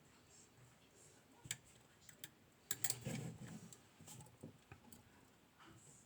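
Small metallic clicks and scrapes of a flag pick working the pin stacks inside a Mul-T-Lock 7x7 cylinder, coming irregularly, with a louder burst of clicking and handling rustle about three seconds in.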